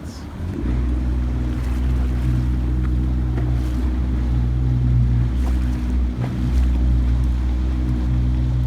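A small boat's motor running steadily at a low drone, getting louder as it is throttled up about half a second in, with wind and water noise around it.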